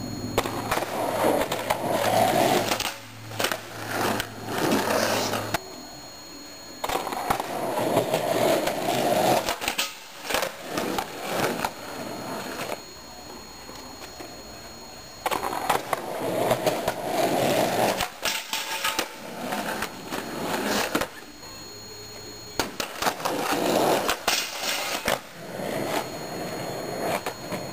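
Skateboard wheels rolling over a concrete driveway in about four runs, each with sharp clacks of the board hitting the concrete and a low metal flat rail as tricks are tried.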